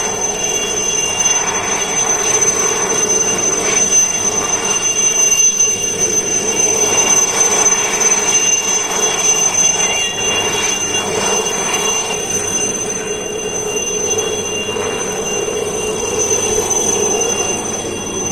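Helicopter running for take-off: a steady, loud rush of engine and rotor noise with a high, steady turbine whine over it, swelling slightly and easing off near the end.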